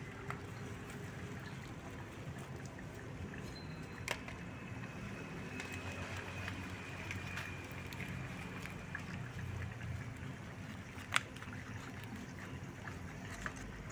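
A pan of chicken in a yellow cooking liquid bubbling hard over an open wood-and-paper fire: a steady bubbling with scattered pops and crackles, and two sharper cracks, about four seconds in and about eleven seconds in.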